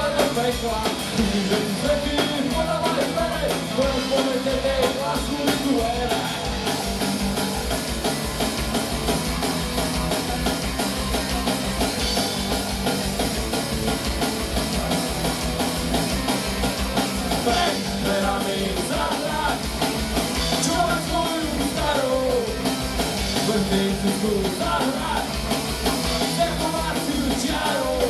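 Punk rock band playing live: drums driving a fast, even beat under the full band, with sung vocals coming in at times.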